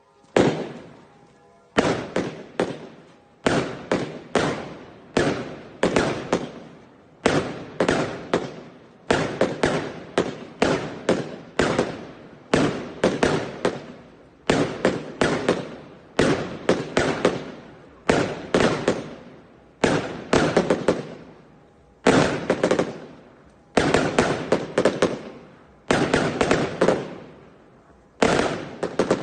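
Fireworks going off: clusters of sharp bangs and crackles, a new cluster about every second, each dying away quickly.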